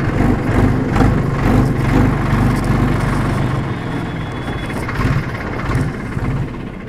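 Tractor's diesel engine running steadily at low speed as it drives, heard from the driver's seat, with a low even hum that eases off slightly near the end.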